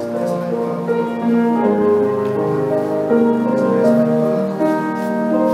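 Slow instrumental keyboard music with sustained chords.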